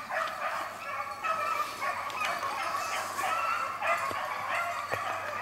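A pack of beagles baying as they run a rabbit, several hound voices overlapping in a continuous chorus.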